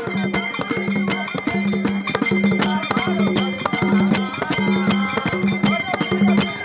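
Folk drumming: a large hand-played barrel drum (dhol) and a smaller drum struck in a fast, steady rhythm, with small hand cymbals ringing along.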